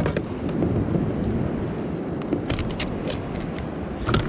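Wind buffeting the microphone in a steady low rumble, with a sharp knock at the start and a few light clicks of handling about two and a half seconds in.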